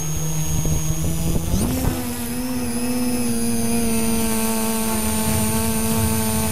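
Talon tricopter's electric motors and propellers whining. About a second and a half in, the pitch rises quickly as the throttle comes up and it lifts off from the grass, then holds a steady whine.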